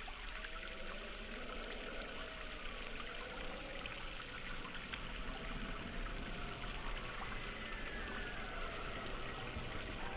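Steady rushing, trickling water-like noise, with faint gliding tones drifting over it now and then.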